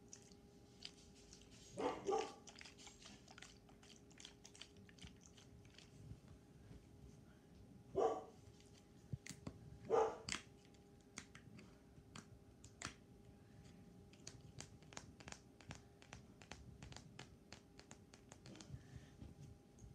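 Fingernails tapping and clicking on a phone case and its PopSocket grip in quick, irregular taps, over a faint steady hum. Three short, louder bark-like yelps break in: a double one about two seconds in, then single ones about eight and ten seconds in.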